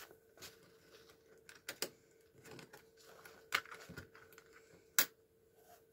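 Faint, scattered taps and clicks of a marker tip dabbing dots onto a paper card topper while the card and pen are handled, with a few sharper clicks, the loudest about five seconds in.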